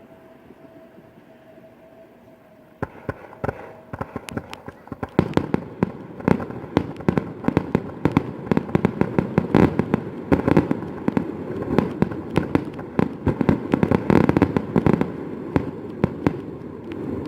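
Fireworks going off in a rapid crackling barrage: sharp cracks and pops start about three seconds in and grow dense and continuous from about five seconds.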